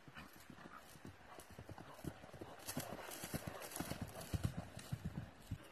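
Hoofbeats of a ridden young mare on grass, dull thuds that grow louder as she comes close and passes by, then stop suddenly near the end.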